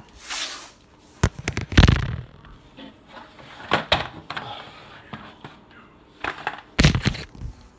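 A series of knocks and clatters with a brief rustle near the start, the sound of objects being handled and moved. The loudest thump comes about two seconds in, with more knocks near four and seven seconds.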